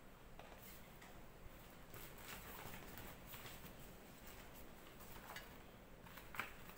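Faint rustling and scraping as cooked rice is scooped with a wooden spoon from a metal rice-cooker pot and a large green leaf is handled, with a sharper click about six and a half seconds in.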